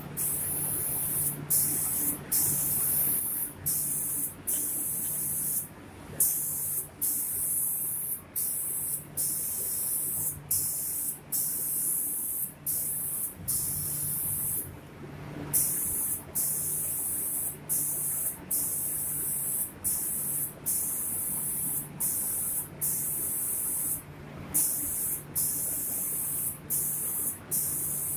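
Automatic spray-painting machine's gun spraying with a steady hiss that cuts off briefly about once a second as it triggers on and off over its passes across the cabinet doors, over a low steady hum.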